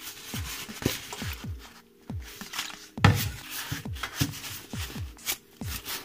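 Background music with a steady beat of deep kick drums that drop quickly in pitch, crisp high ticks and sustained low chords.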